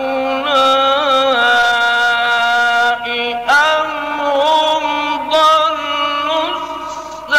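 A man's voice in slow, melodic Quran recitation (tajwīd), drawing out long, ornamented held notes. A fresh phrase begins about halfway through.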